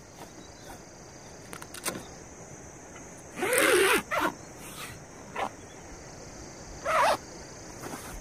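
Nylon tent door zipper pulled in two short zips, one about three and a half seconds in and a shorter one about seven seconds in, with a few light ticks of handling between them.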